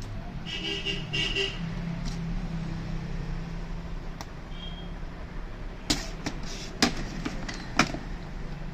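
Sharp clicks and knocks of printer parts being handled during a gear repair, three of them in the second half, over a steady low background hum. A brief high tone sounds about a second in.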